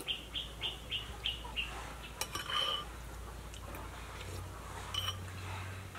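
A bird calling in a rapid run of short, high chirps, about three a second, that stops about two seconds in; a few faint clicks follow.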